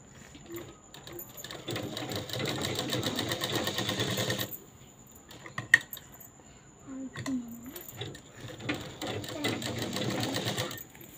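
Domestic sewing machine stitching in two runs of about three seconds each, a fast steady rattle of stitches. A single sharp click comes between the runs.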